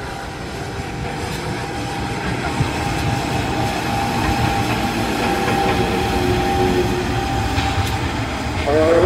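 CC 201 diesel-electric locomotive (a GE U18C type) running light at low speed, its engine sound growing louder as it comes close. Near the end the engine revs up with a rising pitch as the throttle is opened.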